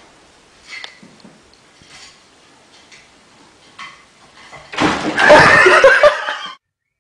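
Faint small knocks, then about five seconds in a loud burst of people laughing for under two seconds, which cuts off suddenly.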